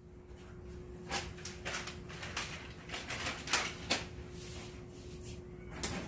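A few short, irregular clicks and knocks over a faint steady hum.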